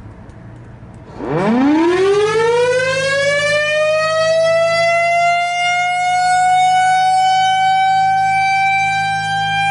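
Federal Thunderbolt 1000 outdoor warning siren winding up about a second in on a test run: its pitch climbs quickly, then slows as it levels off into a steady high wail. A low hum joins beneath it about two seconds in.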